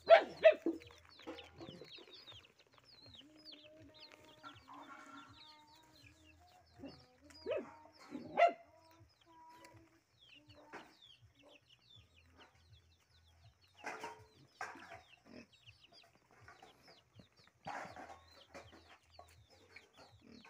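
Young chickens peeping throughout with short, high, falling chirps. Louder clucking calls come near the start, again about a third of the way in, and in a few bouts later.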